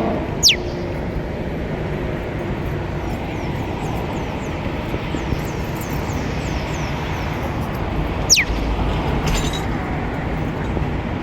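African grey parrot giving two short, sharp whistles that drop steeply in pitch, about eight seconds apart, with faint quick chirps between them, over a steady hum of city traffic.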